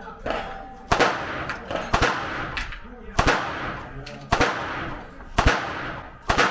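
Pistol shots fired one at a time at a steady pace, about one a second, six loud cracks, each followed by a short echoing tail.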